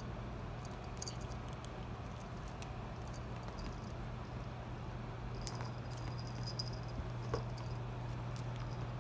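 Small bell on a cat's collar jingling on and off as the cat bats and pounces at a paper strip, busiest a little past the middle, over a steady low hum.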